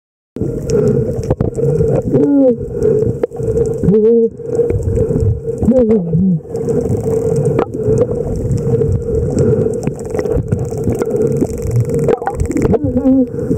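Underwater sound of a snorkeler's muffled voice through the snorkel, laughing in a few short cries that swoop up and down in pitch, over a steady drone and a wash of water noise and small clicks.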